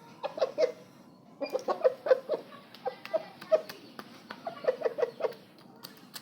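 Young rooster clucking in quick runs of two to four short notes, repeated several times.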